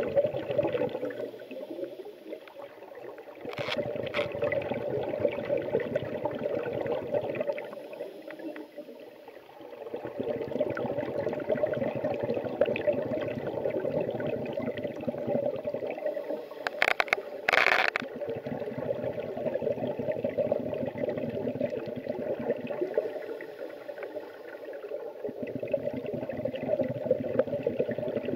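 Scuba diver breathing through a regulator underwater: stretches of bubbling exhaust several seconds long, broken by quieter gaps about every six to seven seconds, with a short sharp hiss about two-thirds of the way through.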